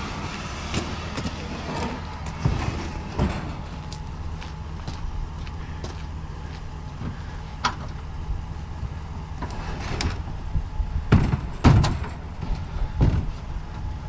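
A plastic johnboat hull scraping and knocking as it is pushed and slid up onto a wooden trailer deck, with scattered thumps that are loudest in a quick cluster near the end. A steady low rumble runs underneath.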